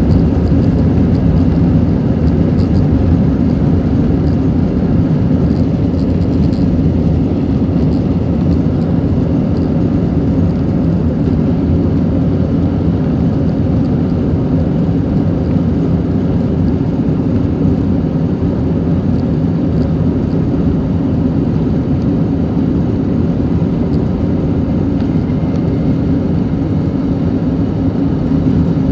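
Steady, loud roar of an Airbus A320 on its takeoff roll, heard inside the cabin: the jet engines at takeoff power together with the rumble of the wheels on the runway.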